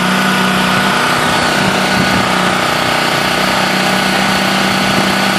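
Steady drone of construction machinery running during a concrete pour, an unchanging engine or motor hum with a high-pitched whine over it.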